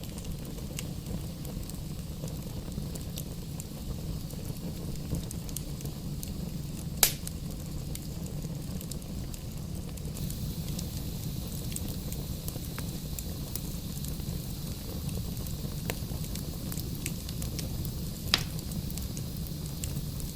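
Wood fire burning in a fireplace: a steady low rumble of flames with scattered small crackles of burning logs, and two sharp, loud pops, one about a third of the way in and one near the end.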